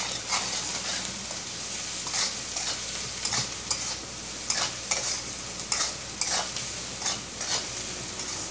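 Chopped onions sizzling in hot oil in a metal kadai, stirred with a spatula that scrapes the pan in repeated strokes, about one to two a second, over a steady frying hiss.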